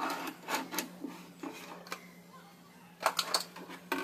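Metal ball-bearing drawer slides clicking and rattling as they are handled and slid on a plywood top: a quick run of clicks at the start and another cluster about three seconds in, over a steady low hum.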